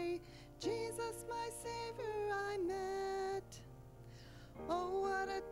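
A woman sings a slow hymn into a microphone to keyboard accompaniment, holding long notes. A little past the middle she breaks off for about a second while the keyboard carries on, then sings again.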